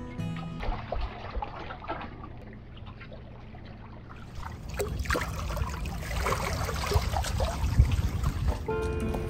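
Seawater lapping, splashing and trickling among concrete tetrapods, with a low rumble underneath, louder in the second half. Background music stops just after the start and comes back near the end.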